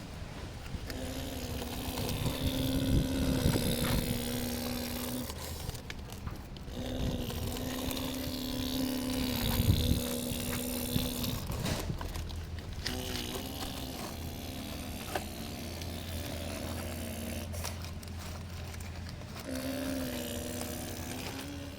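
Model excavator's small electric motors whining steadily in several stretches of a few seconds each, starting and stopping as the machine works, over a low rumble.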